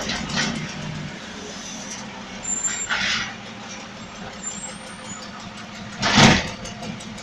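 Garbage truck engine running steadily, with a short rush of noise about three seconds in and a louder one, about half a second long, near six seconds.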